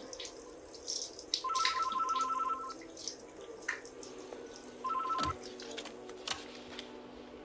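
Landline telephone ringing with a warbling two-tone electronic ring: one ring of about a second starting about a second and a half in, then a short one around five seconds in that cuts off as the handset is picked up.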